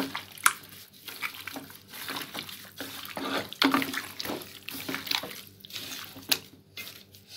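Gloved hand kneading raw chicken pieces in marinade in a metal bowl: irregular wet squishing and slapping, with a few sharp clicks.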